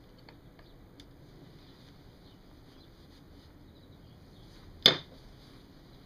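A few faint light ticks and one sharp knock a little before the end, from hands and a screwdriver working on a Seagull outboard's magneto plate, over a faint steady hiss.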